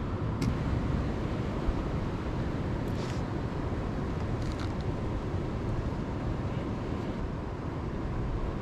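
Steady rushing noise of ocean surf and wind on the microphone, with a few faint clicks.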